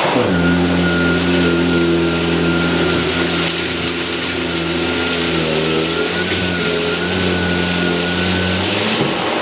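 Electrolux UltraFlex bagless canister vacuum running with a Miele powerhead, a steady motor hum and whine over rushing airflow as it sucks up dust and rice. The hum breaks off briefly near the end.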